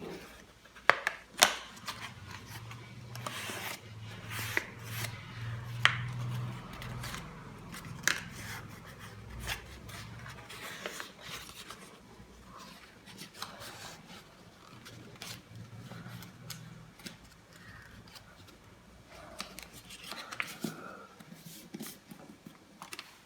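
Craft paper being folded and creased by hand: rustling and crinkling, with sharp snaps as the folds are pressed down.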